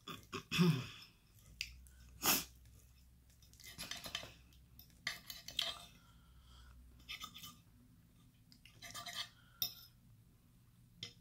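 Close-up eating sounds: a fork clinking and scraping on a plate as cheese enchiladas are cut, and chewing, in short irregular bursts with a few sharp clicks.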